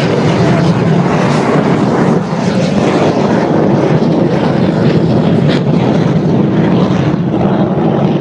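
Loud, steady roar of jet engines as a jet truck, powered by a Rolls-Royce Viper 202 turbojet, and a turbojet-powered Daihatsu jet car race down a runway, with aircraft engines mixed in.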